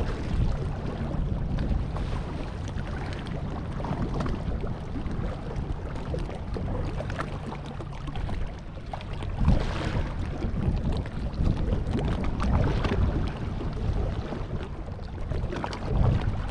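Wind buffeting the microphone, gusting up and down, with sea water washing against the rocks.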